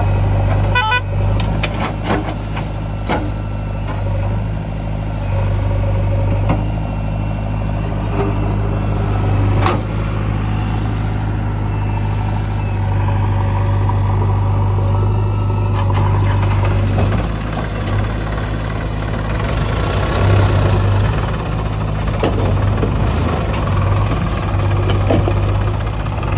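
Diesel engine of a JCB 3DX backhoe loader running steadily while it loads murum, with a few sharp knocks and clanks. The engine works harder in the last third.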